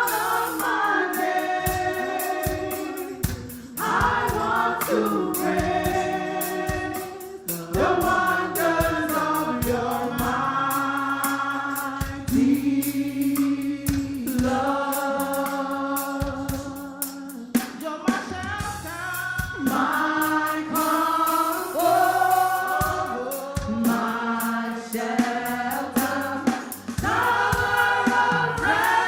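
Church choir and congregation singing a gospel worship song, accompanied by a band with a steady drum beat.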